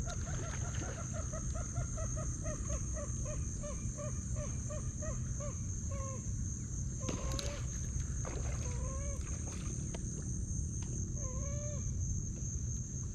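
A bird calling: a fast run of short, repeated notes that slows after about five seconds into a few longer, drawn-out notes. A steady high-pitched buzz runs underneath.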